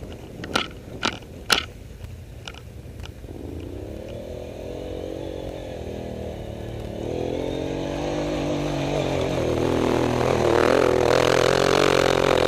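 ATV engine revving up and down in waves, growing louder toward the end. Three sharp knocks come in the first two seconds.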